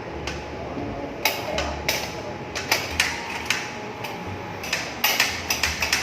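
A series of sharp knocks and clicks at irregular intervals, coming thicker and faster near the end.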